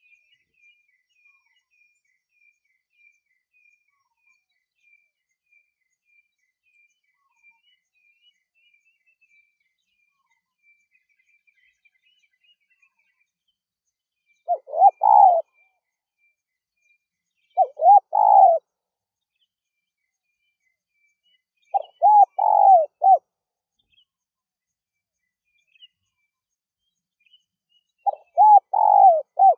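Spotted dove cooing: four phrases of a few throaty notes each, about a second long, starting about halfway in and spaced a few seconds apart. Faint, high repeated chirping runs through the first half.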